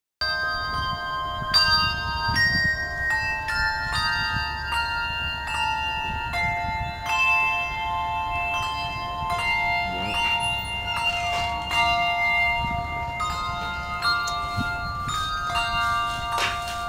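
Handbell trio playing a tune on brass handbells, notes struck one after another and ringing on so that they overlap.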